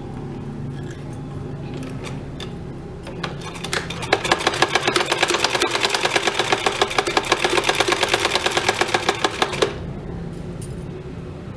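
Black, gold-decorated vintage sewing machine stitching a contrast strip onto cotton fabric: a fast, even clatter of the needle and mechanism that starts about four seconds in and stops abruptly near the end.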